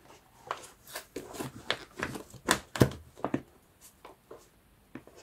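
Paper ephemera being handled: a quick run of short, irregular rustles and taps over about three seconds, then it goes quieter.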